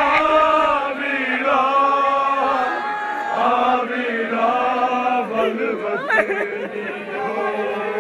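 A group of men chanting a noha, an Urdu mourning lament, together in held, wavering phrases of about a second each with short breaks between them.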